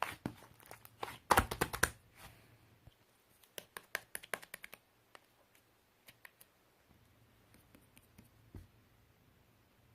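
Handling noises: a dense run of clicks and rattles about a second in, then lighter scattered ticks and a few faint taps.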